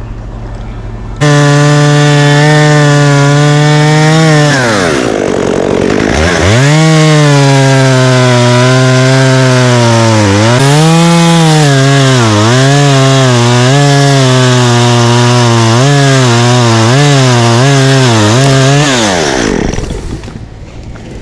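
Chainsaw cutting through an oak limb. It jumps to full throttle about a second in, its revs dip sharply as it bogs in the cut around five seconds in, then waver under load before it throttles down near the end.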